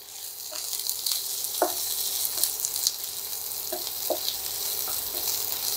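Chopped onion sizzling as it fries in hot oil, stirred with a wooden spatula. The sizzle swells over the first second and then holds steady, with a few light clicks of the spatula against the pan.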